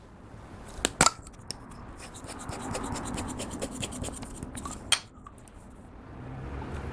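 Clear slime being kneaded and stretched with lipstick mixed in: a quick run of crackling, sticky pops from trapped air, with a few sharp clicks about a second in and near the five-second mark.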